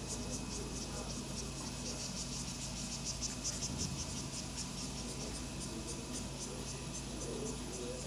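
Insects chirping in a fast, even, high-pitched pulse, several pulses a second, with a steady low hum underneath.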